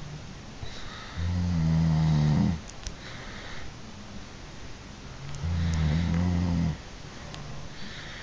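Grizzly bear snoring: two loud, low snores about four seconds apart, each a little over a second long, with quieter breath sounds in between.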